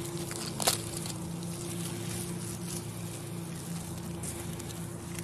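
A dachshund puppy's mouth and nose crackling a dry leaf and rustling the grass, with a sharp crackle under a second in. A steady low hum runs underneath.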